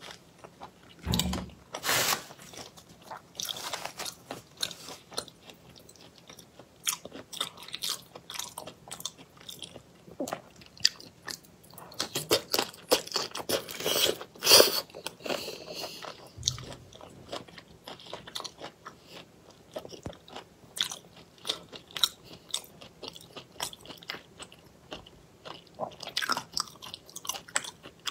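Close-miked chewing and crunching of raw shrimp in chili marinade: irregular wet crunches and mouth sounds, with a denser, louder spell of crunching a little before halfway through.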